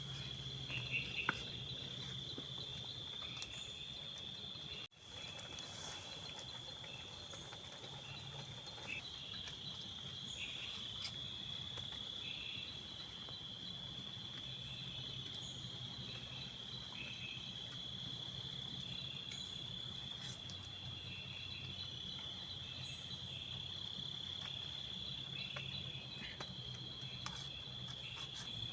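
Steady high-pitched insect chorus: one continuous trill with shorter chirps just below it and a few faint clicks. The sound drops out briefly about five seconds in.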